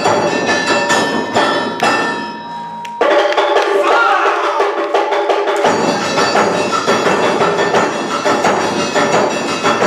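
Awa Odori dance music: drums and a ringing metal gong keep a fast, steady beat under a held melody. About three seconds in the drums drop out for a couple of seconds while the melody continues, then the beat comes back in.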